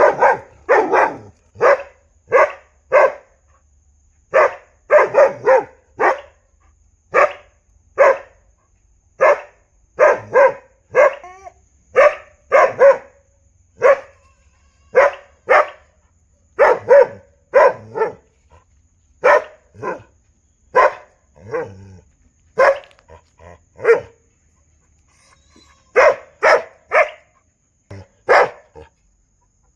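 A dog barking over and over in quick runs of two or three barks, with short pauses between runs and a longer pause near the end.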